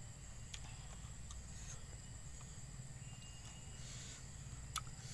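Faint eating sounds: a fork clicking and scraping now and then inside an instant noodle cup, over a low steady hum.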